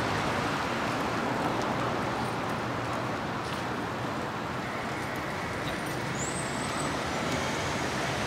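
Steady city street traffic noise, a mix of passing cars and general urban hum, with a brief high chirp about six seconds in.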